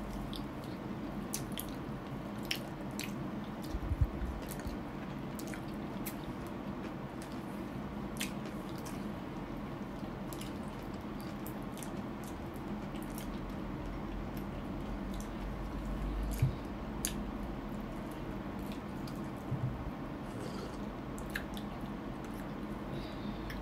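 Close-up wet chewing and mouth sounds of someone eating, with scattered small clicks and two soft thumps, about 4 and 16 seconds in.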